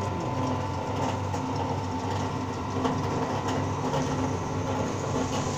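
Horizontal feed mixer machine running with a steady mechanical hum and a thin constant high tone.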